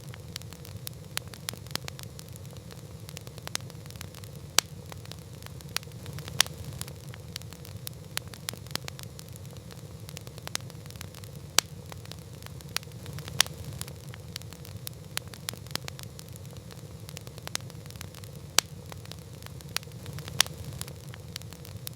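Wood campfire crackling: frequent irregular small snaps, with sharper louder pops every couple of seconds, over a steady low rumble.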